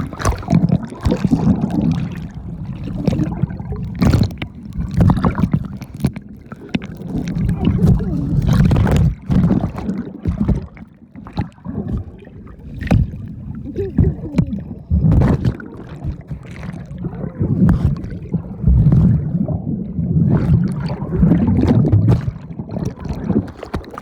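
Rubbing and knocking of a phone in a protective case clipped to a life jacket, a low uneven rumble with frequent short knocks, over the sound of river water around a raft.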